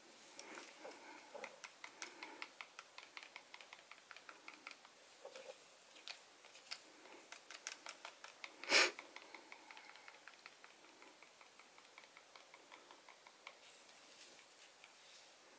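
Wooden craft stick stirring acrylic paint in a small plastic cup: a quick run of small clicks and scrapes as the stick knocks against the cup. One louder sharp knock about nine seconds in.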